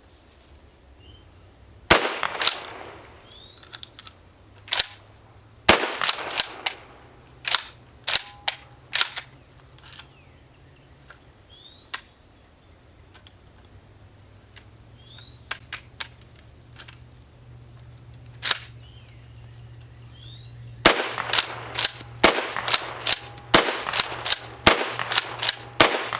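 Dickinson pump-action shotgun being fired, with loud shots that ring out, then sharp clacks and clicks as the pump is worked between them. In the last five seconds comes a quick run of reports and clacks.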